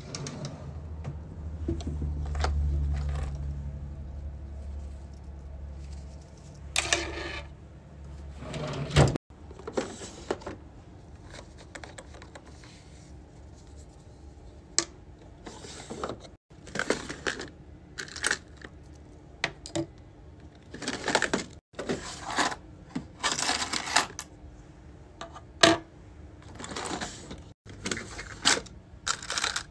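A drawer sliding open with a low rumble in the first few seconds, then a string of short clicks and clinks from plastic organiser drawers and metal key rings and keychain parts being handled, broken by several abrupt cuts.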